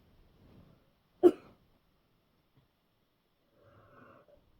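A person's single hard, short cough about a second in.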